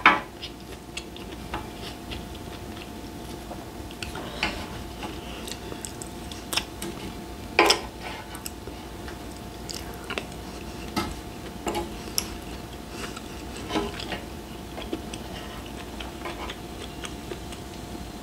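Eating sounds: chewing grilled beef intestines, with scattered clicks and knocks of a wooden spoon against a small bowl and the grill plate, over a faint steady hum.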